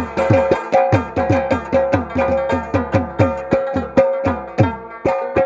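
Instrumental break in a Pashto ghazal: a rabab repeating a melody over a steady rhythm of hand-drum strokes, about three a second, the low drum notes sliding downward.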